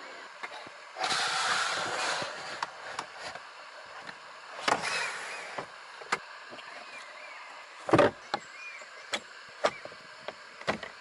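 Mechanical handling sounds from a Volvo XC60: a run of sharp clicks and clunks, two short rushes of noise about one and four and a half seconds in, and a heavy thump about eight seconds in.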